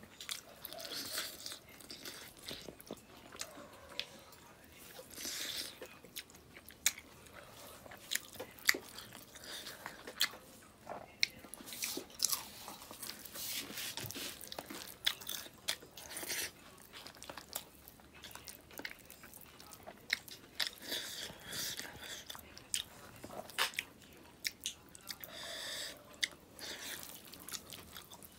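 A person eating with his hand: chewing and crunching with wet mouth smacks and many sharp clicks, on and off throughout.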